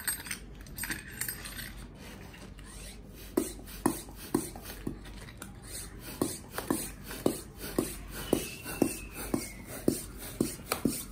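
Hand-operated floor pump being worked by hand, inflating a vinyl paddling pool's ring: short repeated pump strokes, about two a second, starting about three seconds in, with a brief pause around the middle.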